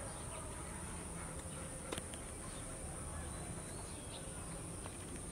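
Faint outdoor ambience with a steady high-pitched insect drone throughout and a single soft tick about two seconds in.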